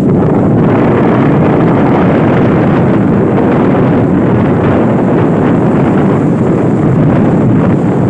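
Strong wind blowing across the microphone, a loud, steady, unbroken noise, with large waves breaking on the beach mixed in underneath.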